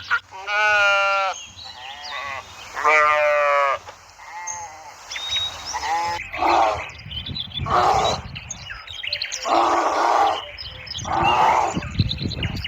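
Sheep bleating: two long, wavering bleats, then a string of rougher, harsher calls.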